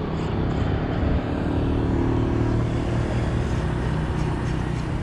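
A motor vehicle's engine running steadily close by, its pitch holding level and easing off slightly after about three seconds.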